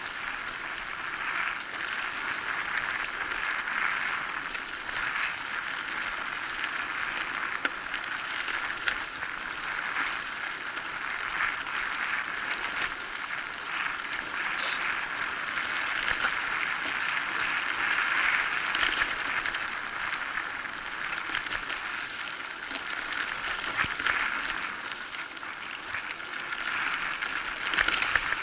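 Electric bike riding over a dirt forest trail: a steady rushing ride noise with frequent small rattles and clicks from the bike as it runs over the bumpy ground.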